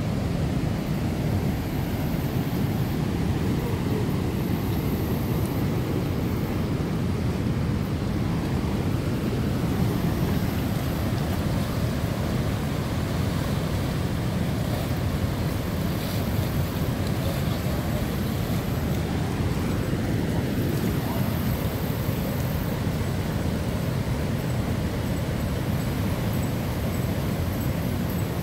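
High floodwater rushing over a lake spillway after heavy rain: a steady, deep rushing noise that stays even throughout.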